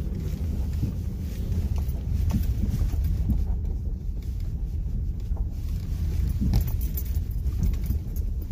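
Honda Ridgeline pickup driving slowly on a gravel road, heard from inside the cab as a steady low rumble of engine and tyres, with a brief knock about six and a half seconds in.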